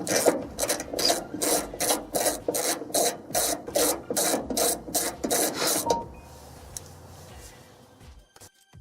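Hand ratchet wrench turning out a 14mm hood hinge bolt, a steady run of ratcheting strokes about three a second that stops about six seconds in.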